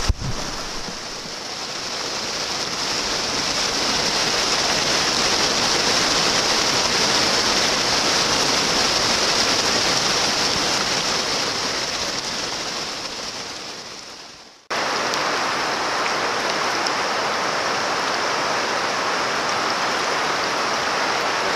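River water rushing over rocks in a shallow riffle, a steady loud rush. It fades away about two thirds of the way through, then cuts straight back in.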